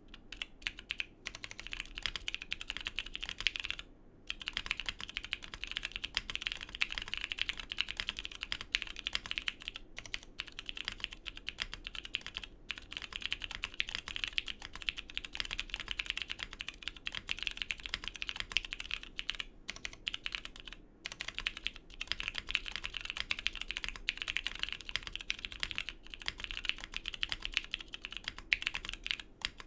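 Continuous fast typing on a Neo80 mechanical keyboard with lubed and filmed Cherry MX Purple switches, POM plate, O-ring mount and PBT keycaps: a dense stream of key clacks, pausing briefly about 4 seconds in and again about 21 seconds in.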